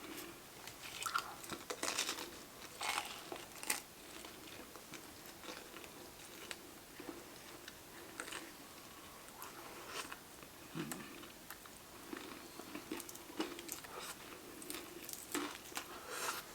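A person biting and chewing food close to the microphone: irregular crunchy bites and wet chewing, the mouth sounds of a mukbang.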